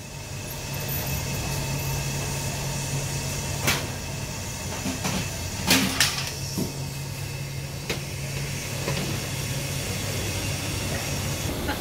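Stacked aluminium steamer baskets over a burner, a steady hiss of steam with a low hum beneath it. Several sharp metal clanks of steamer baskets or lids being handled, the loudest about four and six seconds in.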